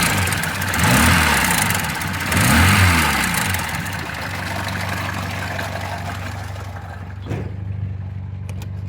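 VAZ-2106 (Zhiguli) four-cylinder engine revved up and down about three times in the first few seconds, then settling to a steady idle, with the drumming rattle of a stretched timing chain. The owner blames a faulty chain tensioner. A couple of sharp clicks near the end.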